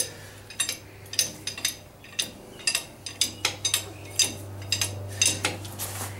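Irregular sharp metallic clinks and taps, about two or three a second, from a steel bar being worked in the split pinch-bolt clamp on a garden tractor's steering spindle to spread it open.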